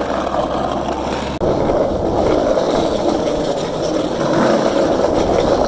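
Steady rolling noise of wheels on pavement, growing louder about a second and a half in.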